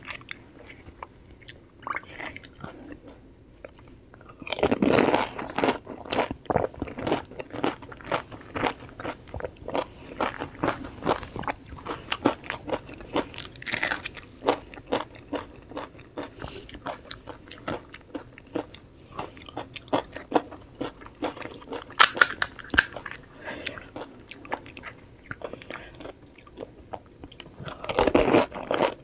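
Close-miked eating of pani puri: crisp puri shells crunching under the teeth, with steady chewing in between. There is a loud crunchy bite about five seconds in, louder crunching a little after two-thirds through, and another bite near the end.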